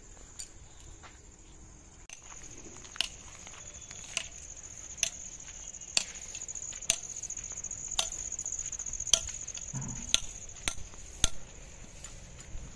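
A steady high-pitched chorus of crickets in the fields, growing louder about two seconds in, with sharp slapping footsteps about once a second as someone walks along a dirt path.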